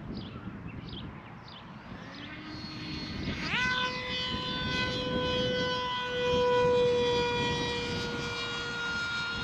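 Electric brushless motor of an RC plane (SunnySky 2216 1300kv spinning an 8x4 propeller) throttling up for a hand launch. A faint hum comes about two seconds in, then a sharp rising whine about three and a half seconds in settles into a steady high-pitched drone at high throttle.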